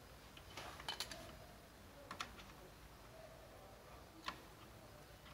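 Small scattered clicks and taps from hands handling Ethernet cable wires, an RJ45 plug and a crimping tool: a cluster about a second in, another at about two seconds, and the sharpest click a little past four seconds.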